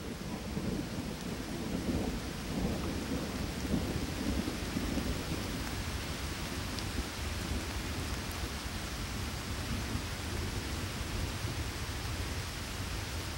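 Steady rain hissing over a low rolling thunder rumble, the rumble swelling a few seconds in.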